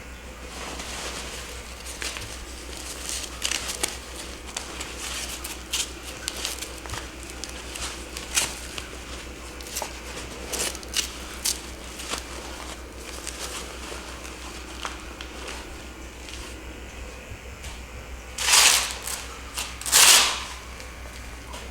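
Rustling and crinkling with scattered small clicks from bodies and hands moving on a chiropractic treatment table, over a steady low hum. Two louder rushing bursts come close together near the end.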